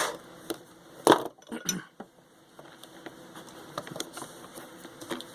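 Small metal hand tools clinking and tapping against a work surface: a sharp clink about a second in, another just after, then scattered light ticks.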